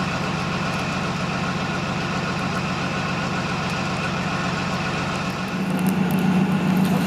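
A heavy vehicle engine idling steadily, then running harder and louder about five and a half seconds in.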